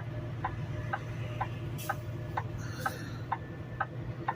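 A truck's turn-signal flasher clicking steadily about twice a second inside the cab, over the low drone of the diesel engine.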